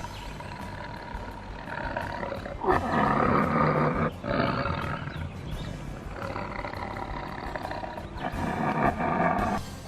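Tiger roar sound effect: two loud roars, about three seconds in and again near the end, over light background music.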